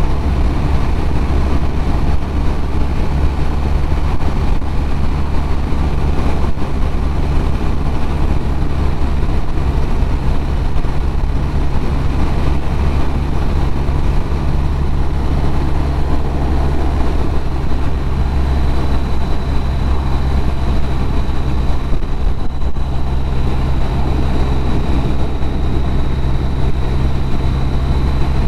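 BMW R1200RT's boxer-twin engine running steadily at a cruising road speed of about 68, mixed with wind and road noise. The sound holds constant, with no change of throttle.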